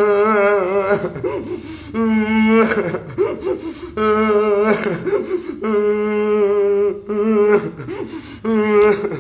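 A man sobbing and wailing: long, wavering cries, one every second or two, broken by catches of breath.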